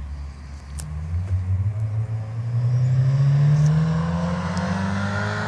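A 2013 Scion FR-S's flat-four engine, breathing through an aftermarket PTuning stainless steel exhaust, accelerates. Its pitch climbs steadily for a couple of seconds, then holds near the end.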